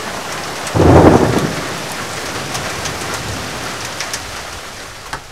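A thunderclap about a second in, loud and then slowly fading, over steady rain.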